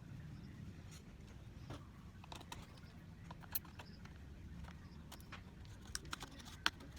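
Scattered light clicks and taps of hands working on a laptop, with a sharper click about three and a half seconds in and a quick cluster near the end, over a low steady hum.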